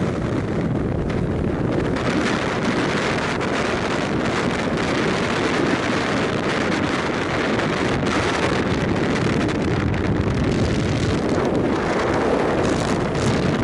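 Strong wind buffeting the microphone: a loud, continuous rushing with gusts coming and going.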